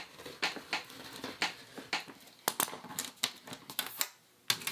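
Rotary cutter rolling through fabric on a self-healing cutting mat, giving irregular scratchy cutting noises, mixed with clicks and clacks of a plastic quilting ruler being shifted and lifted. There is a sharp clack near the end.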